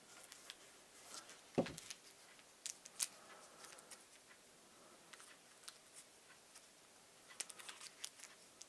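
Light clicks and small rustles of hands taking tiny replacement propeller screws out of their packet, with a few sharper ticks, the clearest about a second and a half in and around three seconds in.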